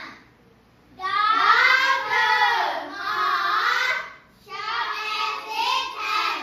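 Children's voices singing in unison: after about a second of quiet, one long phrase of about three seconds, a short break, then a second shorter phrase.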